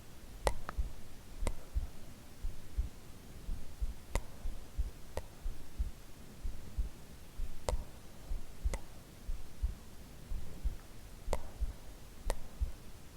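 A woman's real heartbeat, recorded and played alone: low, steady beats. A few sharp clicks come over it in pairs about a second apart.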